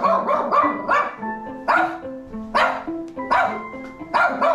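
Battery-operated plush toy dog playing a simple electronic tune, with recorded barks repeating over it about once or twice a second.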